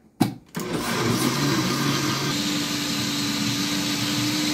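Glass-jar countertop blender switched on and running, grinding grated coconut pulp with water to make a second pressing of coconut milk. A click comes just before the motor starts, and the motor's hum steps up in pitch about two seconds in.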